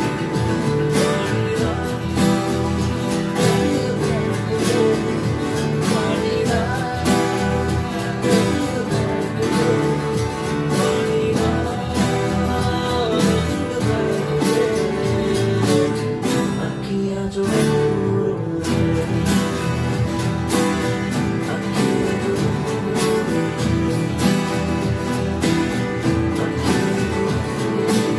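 Several acoustic guitars strummed together in a steady rhythm, a group playing a raga tune in unison. The strumming thins briefly a little past halfway, then carries on.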